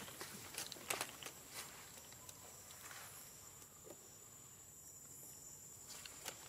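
Soft rustling footsteps of a long-tailed macaque walking over grass and dry leaves, a few light crackles in the first second and a half, over a steady high-pitched insect drone.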